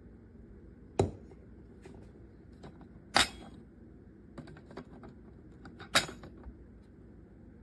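Hard objects being handled: three sharp clicks or knocks, at about one, three and six seconds in, with lighter ticks and taps between them.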